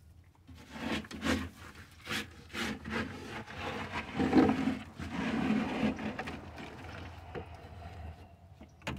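Gloved hand rustling and scraping bedding against the wood of a chicken nest box, in irregular strokes with several louder scrapes.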